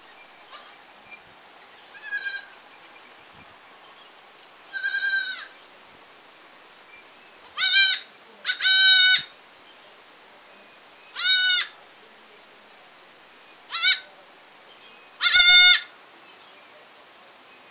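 Baby goats (kids) bleating: seven short bleats spaced one to three seconds apart, the first faint and the later ones louder.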